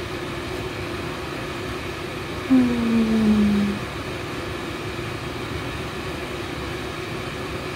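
Steady machine-like hum with a faint constant tone underneath. About two and a half seconds in, a woman hums one low note with closed lips, sliding slowly down for just over a second.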